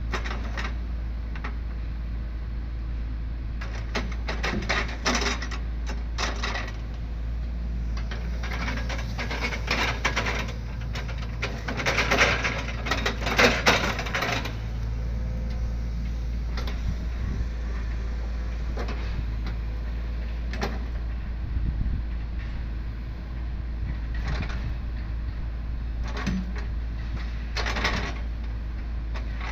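Log-loading grapple excavator at work: a diesel engine runs steadily underneath while heavy wooden logs knock and clatter against each other and the steel truck bed as the grapple grabs and sets them down, the loudest bout of knocking about halfway through.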